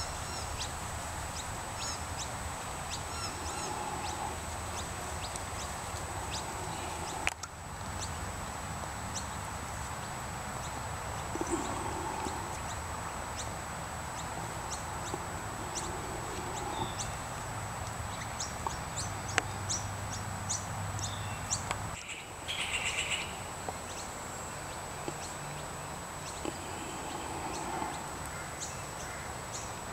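Birds chirping and calling: many short, high chirps scattered throughout, with a brief burst of calls a little over twenty seconds in, over a low steady hum.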